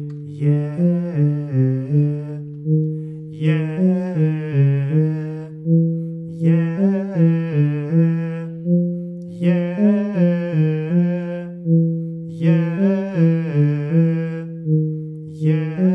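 A vocal warm-up exercise: quick repeated piano notes playing a pentatonic pattern at a brisk tempo of 160, with a man's voice singing along in five phrases of about two seconds each, one roughly every three seconds.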